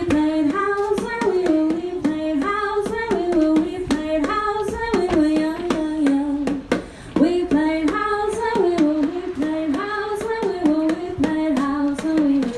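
A song: a solo voice sings a melody in phrases over an accompaniment of sharp, regular percussive strikes.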